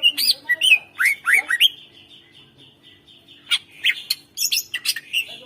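Cucak ijo (green leafbird) singing loudly in quick bursts: whistled notes sliding up and down mixed with sharp chips, a short pause about two seconds in, then a fast run of sharp notes. This is the vigorous 'gacor' song used as a master recording to provoke other birds.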